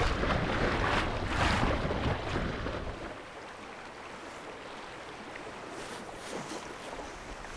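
Wind buffeting the microphone over the rushing, splashing bow wave of a small sailboat under way. About three seconds in it drops to a much softer hiss of small waves on open water.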